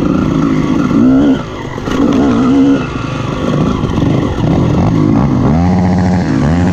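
Honda CR250R's 250cc two-stroke single-cylinder engine running under load off-road, its pitch rising and falling quickly with the throttle and holding steadier near the end.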